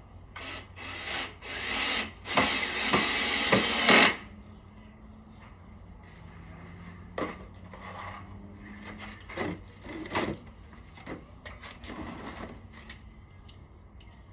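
Rough rasping strokes of work on material, about two a second for a couple of seconds, the loudest part. Scattered knocks and clicks follow.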